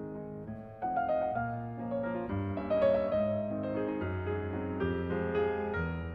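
Background piano music: a slow melody of sustained notes over held bass notes.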